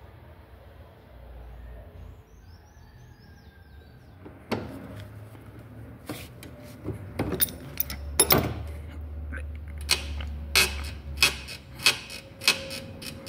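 Metal objects clinking and clattering: quiet at first, then from about four seconds in a series of sharp metallic knocks and clinks with a faint ringing, coming more often toward the end.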